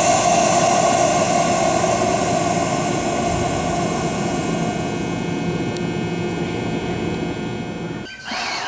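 Screw-type air compressor (MH3096-1600S) of a JR 209-series train running with a steady, vacuum-cleaner-like hum that slowly fades. It is cut off abruptly about eight seconds in, where a different sound begins.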